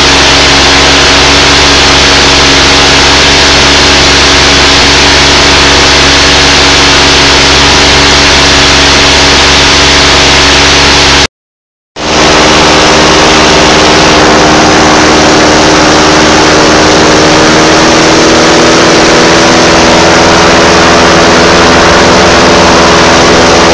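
Verner JCV-360 fuel-injected two-cylinder four-stroke paramotor engine and propeller running loud and steady at mid throttle, about 4650 rpm. The sound drops out for under a second about halfway through, then resumes at the same steady pitch.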